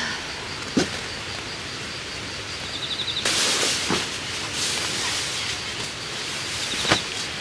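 Outdoor ambience with steady background noise, a few light knocks, and about a second of louder rustling hiss midway. Brief high chirps come near the middle and near the end.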